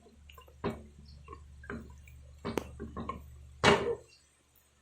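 Kitchen handling sounds at an open pot: a few light taps and knocks, then one louder knock about three and a half seconds in, over a faint low hum.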